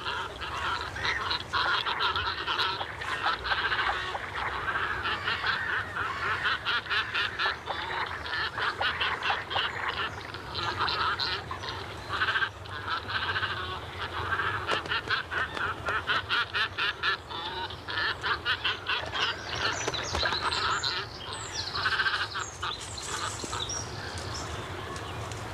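Mixed breeding colony of cormorants and Eurasian spoonbills: many birds calling at once in a continuous din of rapid, repeated calls, with some higher-pitched calls near the end.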